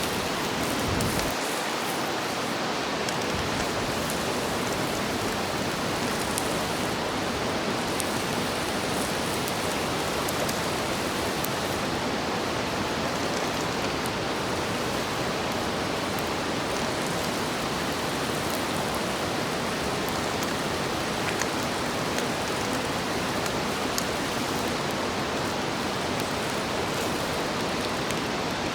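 Food sizzling steadily on an iron griddle over a campfire, with a few faint crackles.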